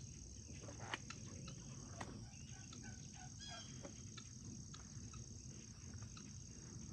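Insects droning steadily at a high pitch in a rural garden, with scattered short bird chirps and two sharp snaps about one and two seconds in, over low rustling and handling noise.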